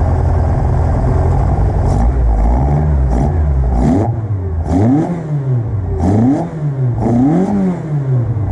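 Fiat 2-litre twin-cam four-cylinder on dual 44 IDF-type carburetors with 285V street cams, idling slightly lumpy, then blipped four times, the revs shooting up and dropping straight back each time. The quick rise and fall is what the builder credits to its lightweight flywheel and pulley letting it rev like crazy.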